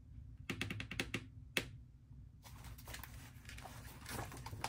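Pages of a disc-bound planner being flipped: a quick run of clicks about half a second in, a single sharper click, then paper rustling and sliding over the discs.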